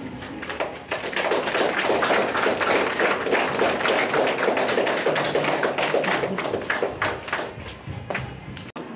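A small group of people clapping, many quick separate claps overlapping, thinning out and stopping near the end.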